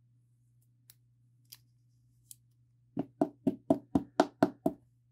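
A rigid plastic toploader with a sleeved trading card inside tapped on a tabletop eight times in quick succession, about four knocks a second, to settle the card down into it. A few faint plastic ticks come first as the sleeved card slides in.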